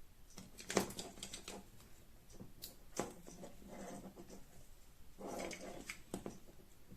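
Faint clicks, taps and scraping from handling the small plastic case and control board of a mini rotary tool while prying the board loose. The sharpest click comes about three seconds in, with short bouts of scraping around it.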